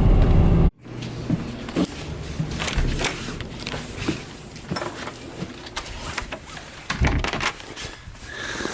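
Car cabin noise with a low engine and road rumble that cuts off abruptly less than a second in. After that come scattered clicks, knocks and rattles of small objects being handled.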